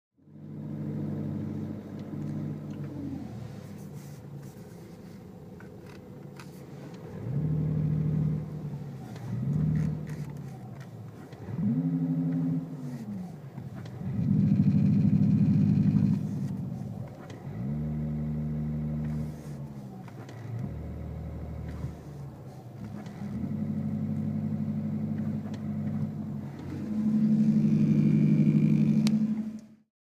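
Renault R-Link R-Sound Effect: a simulated engine note played through the car's speakers, at one point set to the Moto GP motorcycle sound. It swells in several rev-like blips, rising then falling in pitch, between steadier idle-like stretches.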